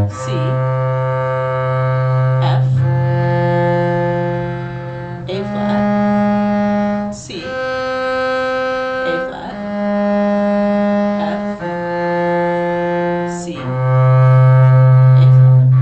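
Cello bowing a slow arpeggio of the F minor chord (A flat, C, F), each note held about two seconds. It climbs over four notes and comes back down over three.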